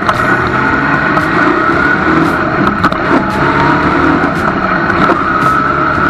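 Sandrail's engine running under way, its pitch shifting up and down as it drives.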